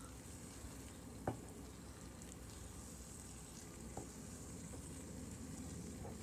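Grated apples sizzling softly in a frying pan as they cook down in their own juice, stirred and scraped with a wooden spoon. There is one sharp knock about a second in and a lighter one near the middle.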